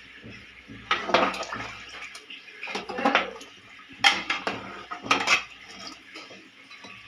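Metal ladle scraping and clinking against the sides of an open pressure cooker pot while stirring curry, in several bunches of sharp clinks and scrapes.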